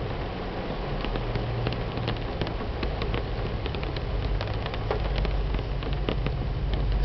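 Heavy rain pouring onto a car's windshield and roof, heard from inside the car: a dense patter of many separate drop hits, with a low steady hum underneath.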